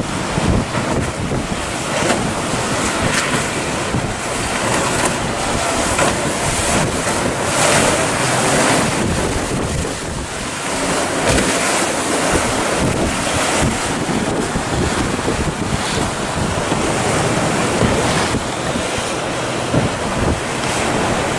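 Waves breaking and surging, with wind buffeting the microphone in gusts.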